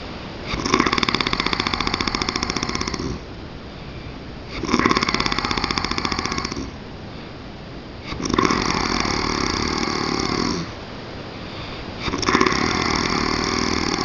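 A man snoring with a rapid rattling flutter: four long snores, each about two seconds, coming about every four seconds with quieter breathing between them.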